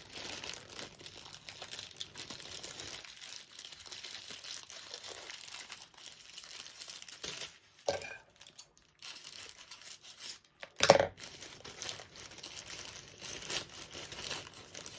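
Packaging crinkling and rustling as a newly bought power bank and its case are handled and unwrapped. There is a short knock about eight seconds in and a louder brief bump about three seconds later.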